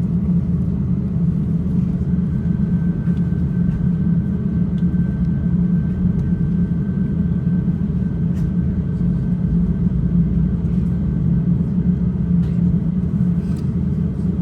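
Steady low hum of an Airbus A350-900's cabin air-conditioning and ventilation with the aircraft parked at the gate, a faint high tone running through the middle and a few light clicks.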